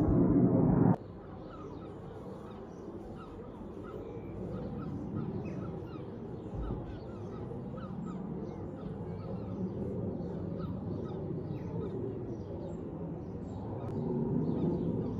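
A loud rumble that cuts off abruptly about a second in, followed by a flock of birds calling: many short calls overlapping over a steady low background noise.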